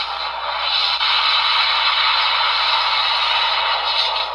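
Electronic finishing-move sound effect from a PDX Premium Kekera & Beroba Kamen Rider toy, played through its small speaker: a dense, harsh, steady noise with no bass that stops just after four seconds in. It is a rushed remix of the toy's earlier Finish Mode sound, which the reviewer thinks Bandai has put on the wrong finisher.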